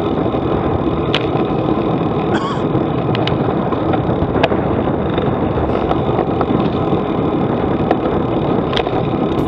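Steady wind rumble and road noise picked up by a bike-mounted camera as a road bike rolls over rough pavement, with a few short sharp clicks.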